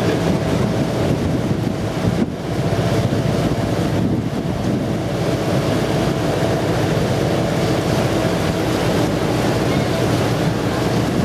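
Wind buffeting the microphone over the steady hum of a river boat's engine under way, with water washing past the hull. The sound dips briefly about two seconds in.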